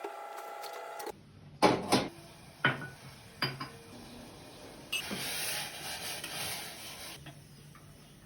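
A steady hum, then a handful of sharp knocks and clinks as household objects are handled, then about two seconds of hissing.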